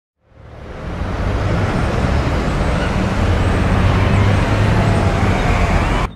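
City street traffic: a steady rumble of passing vehicles that fades in over about a second, with a few faint sliding pitches, and cuts off suddenly near the end.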